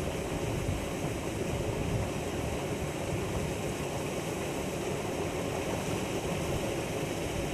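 Steady rushing noise of wind on the microphone, with no distinct events.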